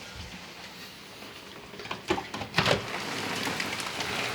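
Heavy rain, muffled at first. A few sharp knocks and clatters from a window being opened come about two seconds in, and then the downpour is louder and clearer.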